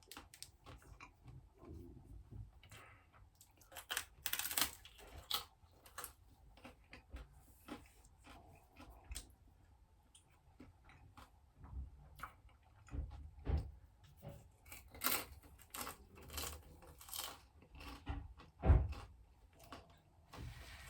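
A person eating: irregular chewing and crunching with small clicks and knocks, and one sharper knock near the end.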